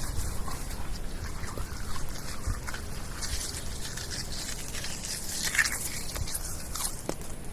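Wet mud being squished and worked, with irregular small squelches, sucking smacks and drips.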